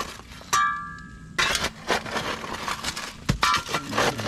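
Shovel blade and iron digging bar chopping and scraping into hard, stony soil and rubble, in a run of sharp impacts. A brief ringing tone sounds about half a second in, and the digging picks up again sharply about a second later.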